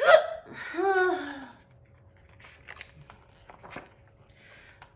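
A brief untranscribed vocal sound from the reader, starting suddenly, then faint rustling and a few soft clicks of a paper book's pages being handled.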